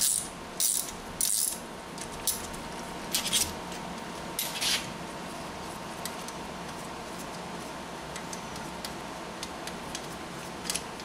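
Light metallic clinks and scrapes of a ratchet, hex key and strut top nut on the threaded strut shaft, about half a dozen over the first five seconds, as the loosened nut is worked off by hand. Then only a steady background hum.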